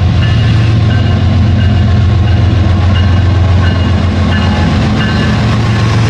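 Rail King toy train running along its plastic track: a steady, loud low hum, with short high clicks repeating about every 0.7 seconds.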